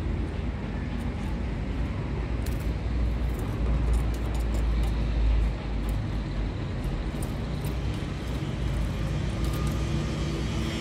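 Steady low rumble, swelling about three and a half seconds in and dropping off suddenly at about five and a half seconds, with faint scattered light clicks over it.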